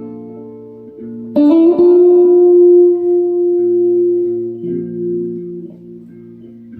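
Slow, improvised guitar music. Quiet notes die away at first, then about a second and a half in a louder group of notes is plucked and left to ring, fading slowly over low notes held underneath.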